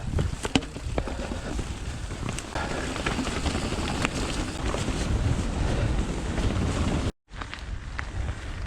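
Wind buffeting the microphone as a steady low rumble, over scattered clicks and knocks from a Giant Trance 29er mountain bike climbing over roots. The sound cuts out completely for a moment about seven seconds in.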